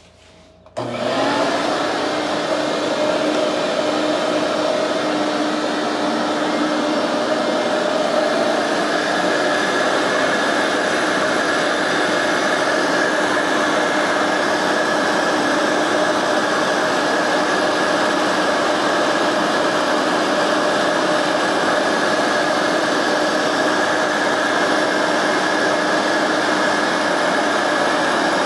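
Shop vacuum switched on about a second in and running steadily, a loud constant whoosh with a few steady tones in it; a higher steady whine grows stronger about nine seconds in.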